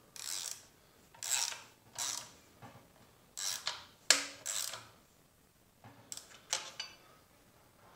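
Hand ratchet and socket clicking in about a dozen short strokes, with a pause about five seconds in, as it runs the nuts down on an axle retainer's T-bolts.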